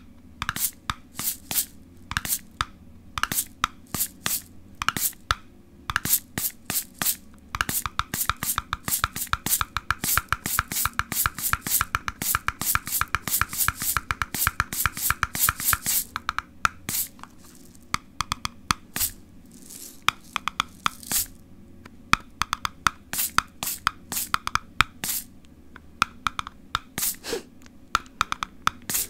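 Rhythmic tapping on objects for ASMR: spaced sharp taps, then through the middle a fast roll of taps with a ringing tone, then slower, sparser taps again.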